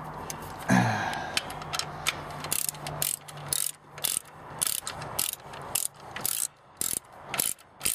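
Hand ratchet wrench clicking through repeated back-strokes, about two a second, as it turns out the power steering belt pulley's adjuster, which now turns freely after being seized.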